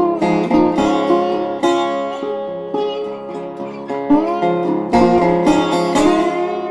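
Background music on plucked strings, with frequent plucked notes and some notes sliding in pitch.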